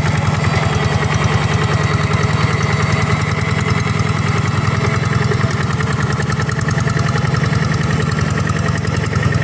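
Paddy hand tractor's single-cylinder diesel engine running steadily with a fast, even beat.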